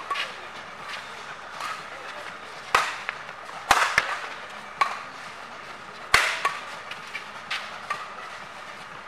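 Badminton rally: rackets striking a feather shuttlecock back and forth, sharp cracks at uneven intervals roughly a second apart, with a few louder smashes in the middle.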